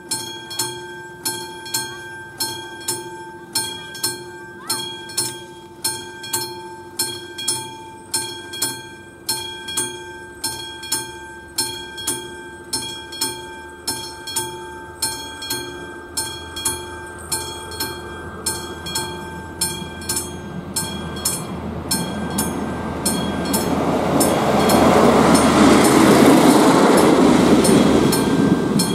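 Level-crossing warning bell (a classic electromechanical bell on AŽD 71 signals) striking steadily, about three strikes every two seconds, warning that a train is approaching. In the last several seconds the rumble of the approaching train builds up and grows loud, drowning out the bell.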